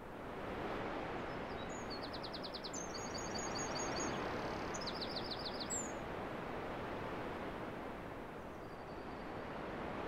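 Outdoor nature ambience: a steady rushing background with small birds chirping. There are three short runs of quick repeated high notes, between about two and six seconds in.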